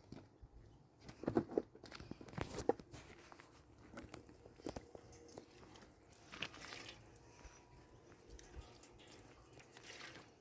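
Faint scattered clicks, knocks and rustling in a small room, with a cluster of sharper knocks about a second and a half in and again near the three-second mark, and a short hiss about six and a half seconds in.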